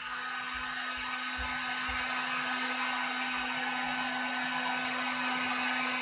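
Harbor Freight heat gun running on its high setting: a steady blowing whir with a steady low hum underneath.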